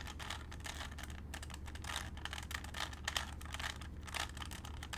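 A standard (non-speed) Rubik's cube being turned quickly by hand, its layers clicking and clacking in rapid, irregular bursts as the last moves of the solve are made.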